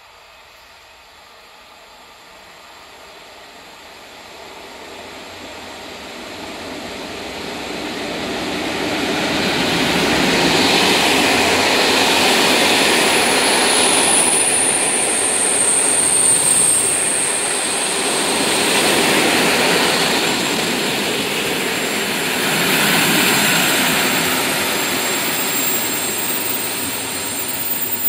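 Passenger train arriving on an electrified line. The rolling noise builds as it approaches, then the coaches roll past with a wheel rumble that swells every few seconds. A thin, high squeal comes through about halfway.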